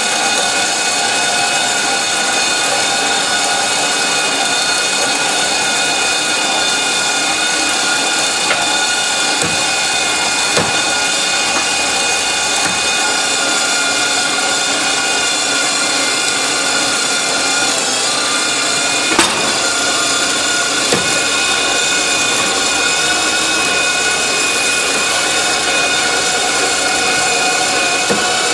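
A power tool's motor running steadily at high speed with a whining tone, with a few brief knocks.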